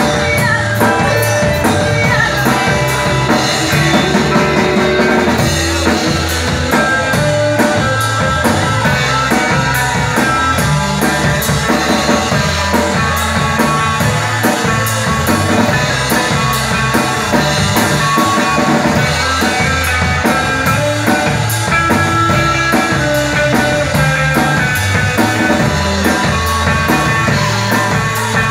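A live rock band playing, with a drum kit keeping a steady beat under electric guitar.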